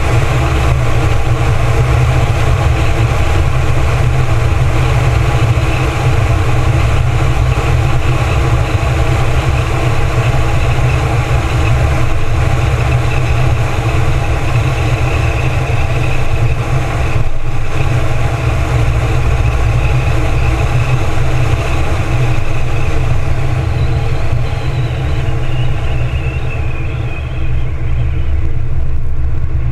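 2014 Ford Mustang's 3.7-litre V6 cruising, heard from outside at the front of the car, with a steady heavy low rumble of wind and road noise over the engine. A whine falls in pitch near the end.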